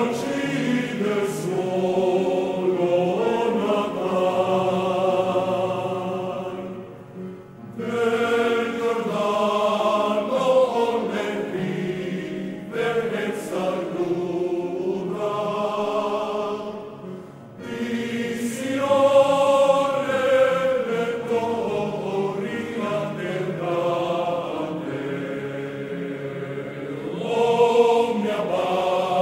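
Men's choir singing in long sustained phrases, with short breaks between phrases.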